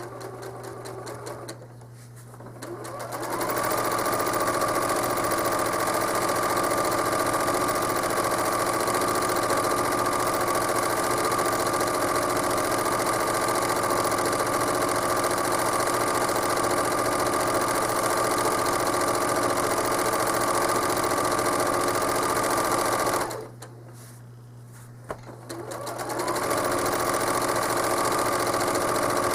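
Home sewing machine free-motion quilting at full speed: it speeds up with a rising whine a few seconds in, runs steadily, stops about three-quarters of the way through, then starts up again near the end. A low steady hum stays under the pauses.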